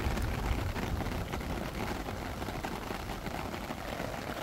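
Steady rain falling, a dense hiss of many small drop ticks, with a low rumble that fades within the first second.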